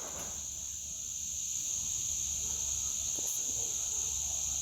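Steady high-pitched drone of insects in the bush, unbroken throughout.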